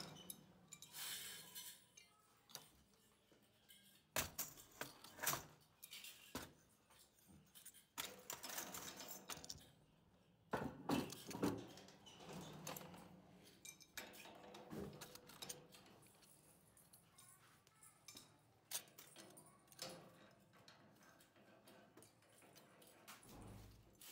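Metal oil filter parts, a perforated steel centre tube and stamped end caps, clinking, tapping and scraping as they are handled and fitted together by hand. The clinks come irregularly, with a busier stretch of scraping and knocking in the middle and only scattered light ticks later.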